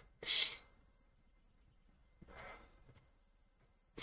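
A person's breathing close to the microphone: a sharp breath in just after the start, then a softer breath out, like a sigh, about two seconds later, with a quiet room between.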